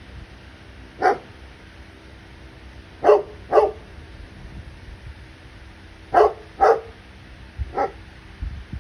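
A dog barking in short separate barks, some singly and some in quick pairs, six in all, spaced a second or more apart.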